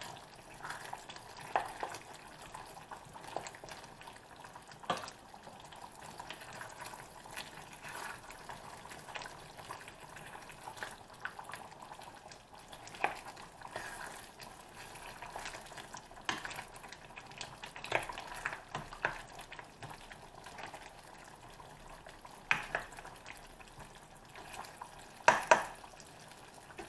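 A spoon stirring a thick stew in a stainless steel pan, with scrapes and knocks against the pan every second or two over a faint steady simmer. The loudest knocks come near the end.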